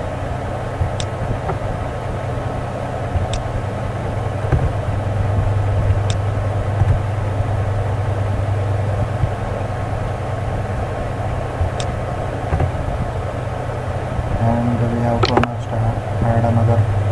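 Steady low hum of background noise, with a few single sharp computer mouse clicks spaced several seconds apart.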